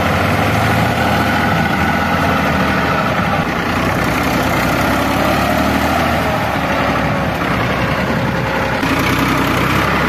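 Massey Ferguson 7250 DI tractor's diesel engine running steadily.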